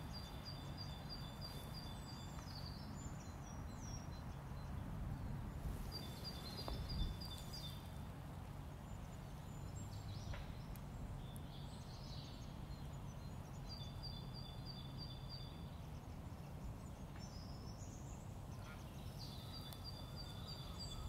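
An excavator's diesel engine idles with a steady low hum. Over it a small songbird gives short, rapid trills of repeated high notes, four times a few seconds apart. A single knock comes about seven seconds in.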